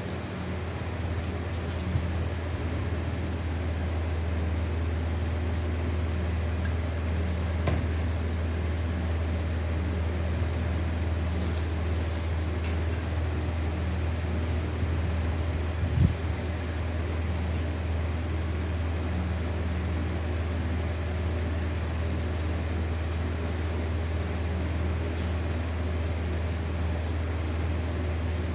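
Steady low mechanical hum, with a few faint clicks and one sharper knock about sixteen seconds in.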